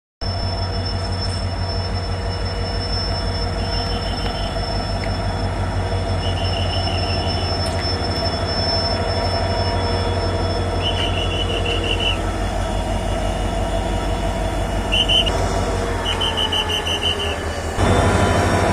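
Railway locomotive running with a steady low rumble, with short high-pitched squealing chirps several times. About a second before the end the sound suddenly grows louder and fuller.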